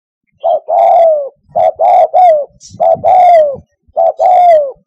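Spotted dove cooing: four phrases in quick succession, each one or two short notes followed by a longer coo that slides down in pitch, starting about half a second in.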